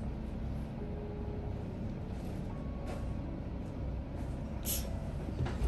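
Steady low background rumble with a few faint clicks; a short sharp click comes near the end.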